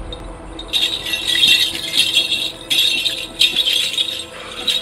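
Hand rattle shaken in several spells of a second or so each, over steady background music.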